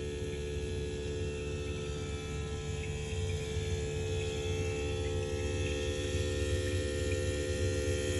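Blue Star air conditioner running with a steady electrical hum and a held droning tone over a low rumble, with faint chirps now and then; this is the noise it makes after its control board was replaced. It grows slightly louder about three seconds in.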